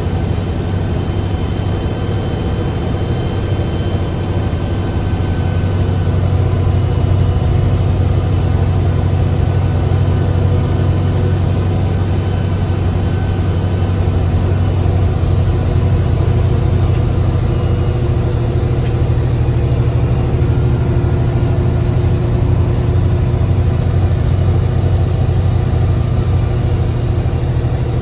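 Mercedes-Benz bus diesel engine running steadily under load, heard from inside the driver's cabin. It grows louder about six seconds in and then holds.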